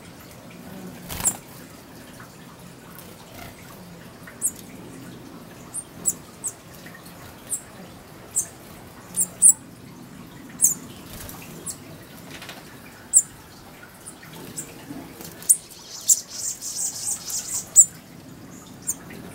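Small birds giving short, sharp, high-pitched chips, scattered about once a second, running into a quick twittering burst near the end. A single soft tap sounds about a second in.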